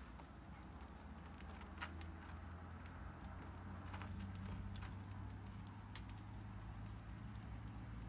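A parrotlet pecking at and nibbling a small piece of cookie on a cage-floor pad: scattered small clicks and taps, a few at a time, over a faint low hum.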